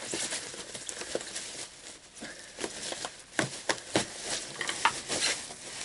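A thin plastic packing bag rustling and crinkling in irregular crackles as an electric guitar is pulled out of it, with a few sharper clicks.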